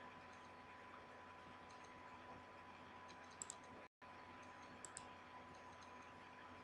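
Near silence: faint room hiss with a thin steady whine, broken by two faint computer mouse clicks, one a little over three seconds in and one near five seconds. The sound drops out completely for an instant just before four seconds.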